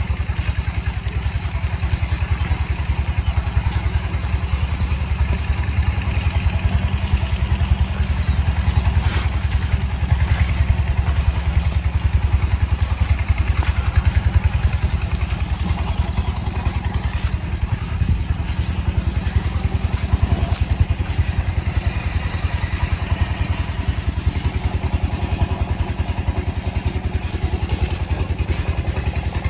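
Engine running steadily with a fast, even thumping beat, unchanged in level throughout.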